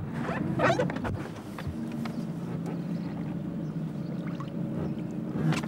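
Motorboat engine idling with a steady low hum as the boat drifts alongside the floating model plane, with a few short knocks and clicks as it is handled at the rail.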